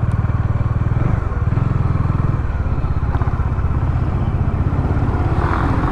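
Motorcycle engine running while riding, picked up by a lavalier mic inside the helmet, with road and wind noise. The engine note drops about a second in and again a little over two seconds in, then runs steady at a lower speed.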